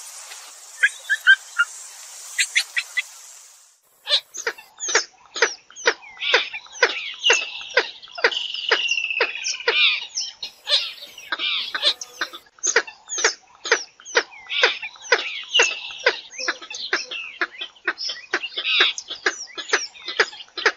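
Swamphen calls: a long, rapid series of sharp clucking notes, about two to three a second, with wavering squeals between them, one drawn out and falling over about three seconds. The first few seconds carry a steady hiss with scattered clicks, which cuts off about four seconds in.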